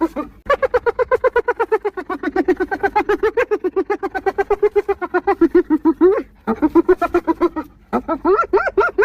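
Spotted hyena giggling: a long run of rapid, pitched staccato notes, about nine a second, sinking a little in pitch. After a brief break about six seconds in comes a shorter run, then another starts near the end.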